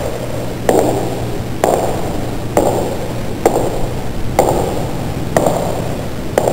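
Sharp metallic pings repeating evenly about once a second, each ringing out briefly, over a steady low hum.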